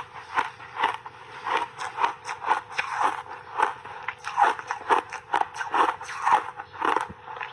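Dry, crunchy block ice coated in milk powder and matcha being chewed: a steady run of sharp crunches, about two or three a second.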